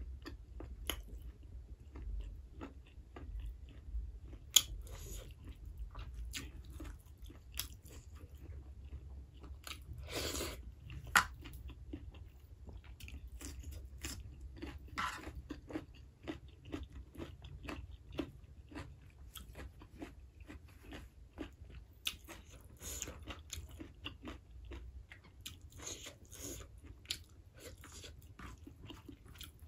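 A person chewing and biting a meal of rice, pork curry and vegetables, with frequent small crunches and clicks, the sharpest about four and a half and eleven seconds in.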